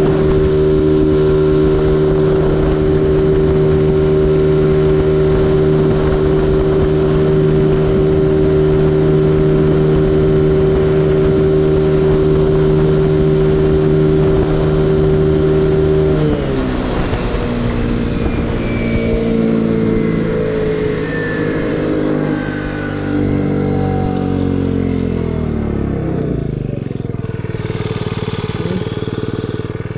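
50cc GY6 four-stroke scooter engine running steadily at full throttle at its top speed of about 35 mph, with wind rushing past. About halfway through, the throttle comes off and the revs fall gradually as the scooter slows, picking up slightly again at the very end.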